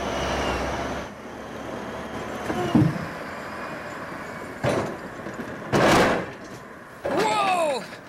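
Log loader's grapple gathering logs over its running engine: wooden logs knocking and clunking together, with two heavy thumps in the second half.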